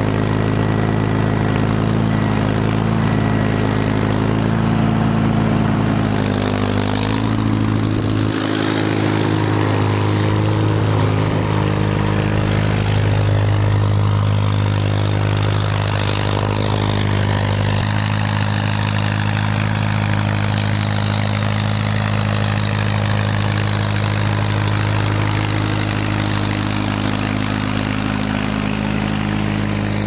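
Farmall M tractor's four-cylinder engine running at a steady speed while it drives through snow.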